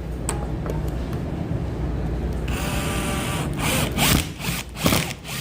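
Power drill boring a hole into the wall for a toggle bolt, a hissing run of about a second midway, followed by a few sharp clatters of tool handling, over a steady low hum.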